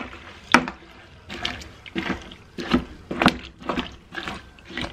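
Apple wine must being stirred in a plastic fermenting bucket with a long plastic spoon: the hot sugar water and the bag of chopped apples slosh, with a knock or swish about twice a second. The stirring dissolves the sugar into the must.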